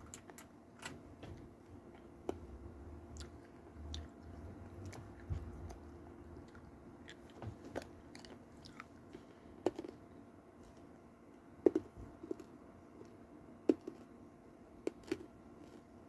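Chewing and crunching of Toxic Waste sour hard candy close to the microphone: soft scattered mouth clicks, with a few sharper crunches in the second half.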